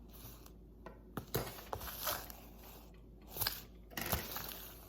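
Packaging being handled: irregular crinkling and scraping in several short spells, with a few sharp clicks about a second in.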